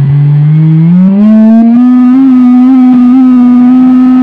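Electric motor and propeller of a handmade foam RC plane, heard from a camera mounted on the plane. The motor spools up, its tone climbing in pitch over about the first two seconds, then holds a steady high-throttle drone as the plane flies low over the field.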